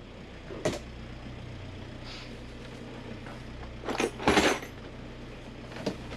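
A plastic toolbox is lifted and set down on a counter with a loud clatter about four seconds in, and a locker door clicks open near the end. Under it runs the steady low hum of the boat's engine idling.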